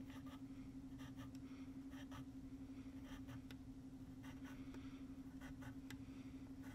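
Pencil tip tapping and scratching short marks on paper, marking the dark spots of a diffraction pattern: faint, irregular ticks, a few each second, over a steady low hum.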